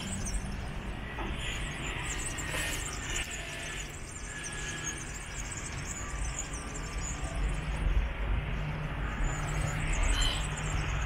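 Outdoor city ambience of steady, distant road-traffic rumble, with no single event standing out.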